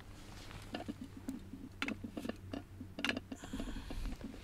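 Light clicks and knocks of a ceramic rice pot and its lid being handled and settled onto a small metal camp stove, with a cluster of clicks about three seconds in.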